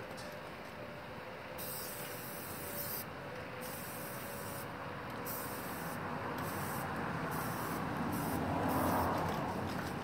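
Aerosol spray-paint can hissing in a run of bursts about a second long with short breaks between, as black paint goes onto a garage door. A lower rushing sound swells louder near the end.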